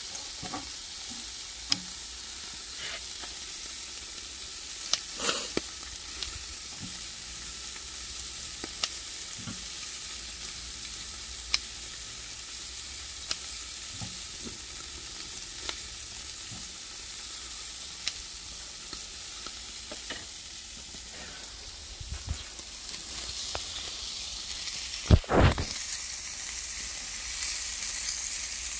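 Eel sizzling on a grill grate over charcoal: a steady hissing sizzle, with scattered sharp clicks of metal tongs on the grate and a louder double knock near the end.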